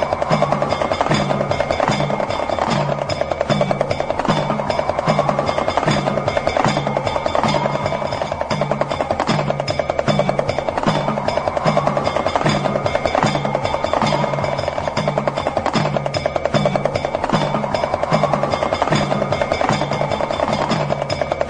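Damru, the small two-headed hourglass drum, rattling in a very fast continuous roll, over a low drum beat about twice a second and a tone that rises and falls every four seconds or so, repeating as a loop.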